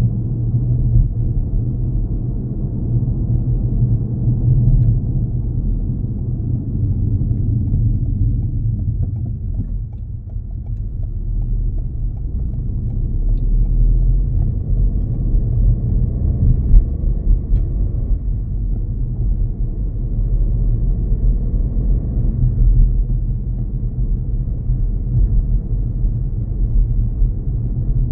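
Low, steady rumble of a car's engine and tyres on the road, heard from inside the cabin while driving. It dips briefly about ten seconds in, then builds again.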